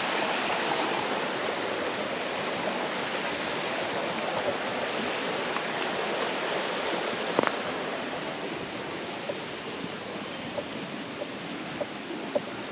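Creek water rushing over small rapids, a steady rushing that slowly grows quieter. A single sharp click about halfway through, and a few light ticks near the end.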